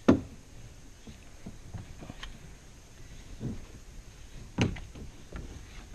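Hobie Mirage Outback kayak's plastic hull knocking against a car roof rack and kayak lifter as it is heaved up and shifted into place. A sharp knock right at the start, then softer thumps and clicks, the louder ones about three and a half and four and a half seconds in.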